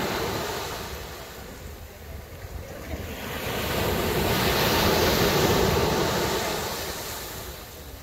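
Ocean surf washing onto a sandy beach: a wave swells and recedes near the start, then a larger one builds to its loudest about five seconds in and draws back.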